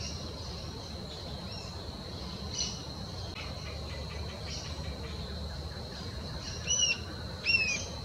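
Rufous-tailed jacamar calling: a few faint high notes, then near the end two loud, sharp, high-pitched down-slurred notes about two thirds of a second apart, over a steady thin high-pitched whine.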